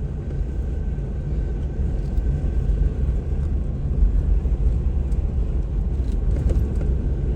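Off-road vehicle driving slowly on a rough dirt trail, heard from inside the cab: a steady low engine and road rumble, with a few faint knocks and rattles in the second half.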